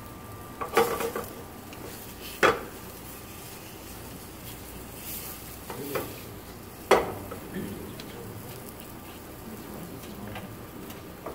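Pork chops sizzling in a frying pan over a gas burner, a steady hiss, broken by a few sharp metal clanks of the pan and utensils against the stove, the loudest about a second, two and a half and seven seconds in.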